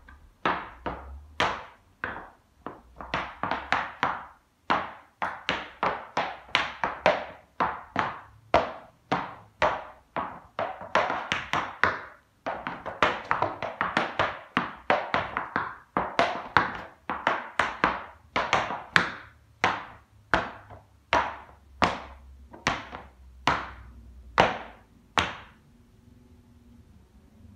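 Tap shoes' metal taps striking the floor in a tap-dance routine: quick flurries of sharp clicks, then slower, evenly spaced single taps that stop about two seconds before the end.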